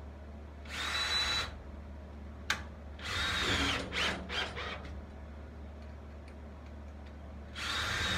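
Cordless drill run in three bursts against a timber batten, drilling pilot holes and driving screws. The bursts come about a second in, around the middle, where it runs in several quick stop-start pulses, and near the end, each with a high motor whine. A sharp click falls between the first two.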